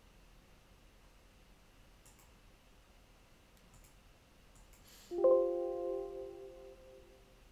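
Computer notification chime: a single soft chord of several tones that sounds suddenly about five seconds in, just after a brief hiss, and fades away over about two seconds. A few faint mouse clicks come before it.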